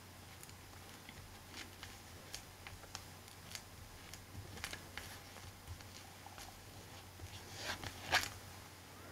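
Faint rustling and small ticks of hands pressing and smoothing glued fabric down onto a chipboard journal cover over newspaper, with a slightly louder rustle about eight seconds in.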